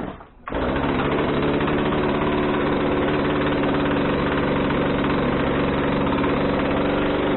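Poulan P3314 33 cc two-stroke chainsaw engine catching about half a second in after a brief starting sound, then running at a steady idle for about seven seconds before cutting off at the end.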